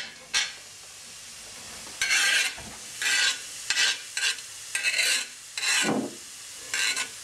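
Onion sizzling in hot olive oil in a frying pan: a steady hiss with louder bursts about once a second from about two seconds in as it is stirred.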